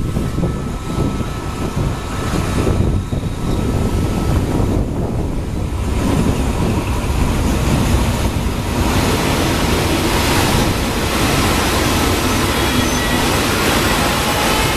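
Freight train rolling slowly, a steady rumble of wagons on the rails, with a thin metallic wheel squeal coming in during the second half.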